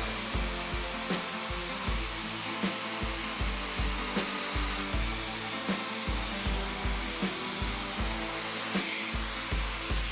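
Hair dryer blowing steadily on wet hair, under background music with a steady beat.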